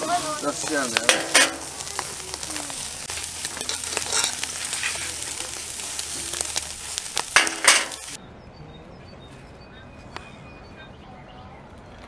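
Food sizzling as it fries, with a few sharp clinks of a utensil being stirred through it. About eight seconds in, the sizzling cuts off abruptly and gives way to a quiet background with faint bird chirps.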